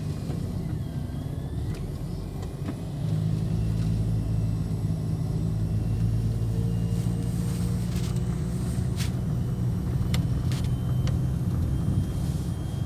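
Car engine and road noise while driving: a steady low drone that grows louder about three seconds in.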